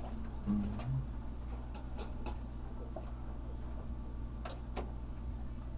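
Quiet room tone with a steady low electrical hum and a few faint small clicks, plus a brief low hum-like tone about half a second in.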